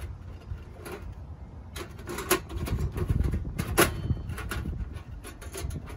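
Thin titanium wood-stove panels clinking and scraping as the heat-warped body is worked back into line, several sharp clicks with the loudest about four seconds in, over a low rumble of wind on the microphone.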